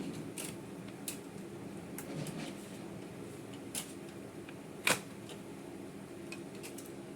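Scattered small clicks and taps from hands working on the parts of an all-in-one PC being taken apart, with one sharper knock about five seconds in, over a steady low hum.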